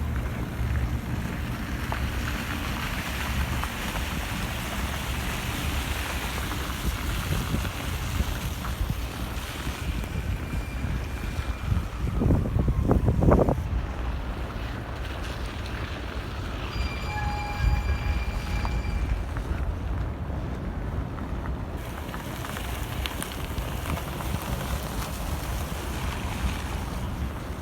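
Wind buffeting the microphone over a steady low rumble of city traffic, with a louder swell about halfway through and a brief steady tone a few seconds after it.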